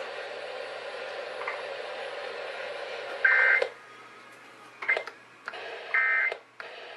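Radio hiss, then short buzzy bursts of Emergency Alert System digital data tones, two of them about three seconds apart, each jumping between two close pitches. These are the end-of-message codes that close an EAS test broadcast.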